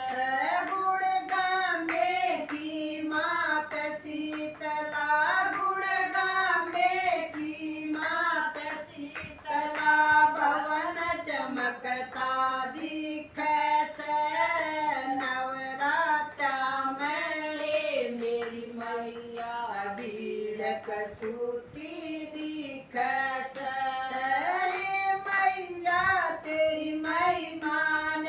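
Women's voices singing a Haryanvi devotional bhajan together, the melody moving from note to note, with hand claps keeping time.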